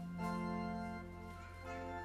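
Organ starting the introduction to a hymn, playing sustained chords that change a few times.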